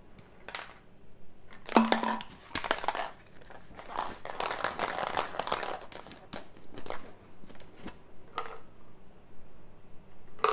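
Irregular crinkling and rustling of a coconut-water drink's packaging being handled while it is drunk, densest in the middle, with a brief hum of voice about two seconds in.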